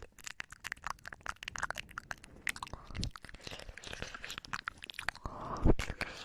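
ASMR mouth sounds made right at the microphone: irregular quick clicks and smacks of the lips and tongue, with one louder low thump about five and a half seconds in.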